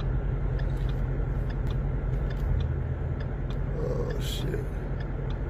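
Steady low rumble of an idling vehicle engine, with faint ticks repeating throughout.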